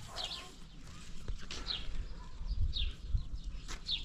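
A small bird calling over and over with short, high, falling chirps, about one every half second to second. Under it come a few low thumps and light knocks as wooden beehive frames are handled.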